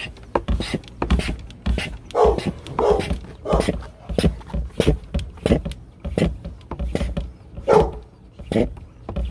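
Hand-operated vacuum oil extractor pump being worked in quick regular strokes, about two to three a second, with a short squeal on several of them.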